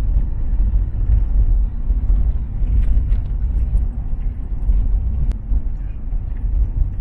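Steady low rumble of a car on the move, with engine and road noise and no sudden events.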